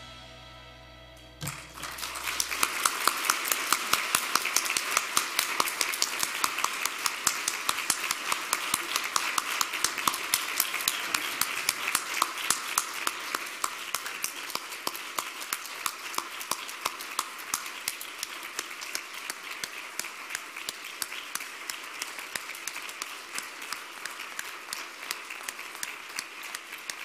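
Background music ends about a second and a half in; then an audience applauds, many hands clapping, the applause slowly thinning toward the end.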